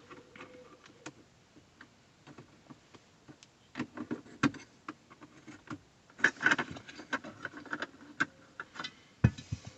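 Scattered light clicks and knocks of small hard objects being handled, coming in irregular clusters about four seconds in and again from about six to seven and a half seconds in.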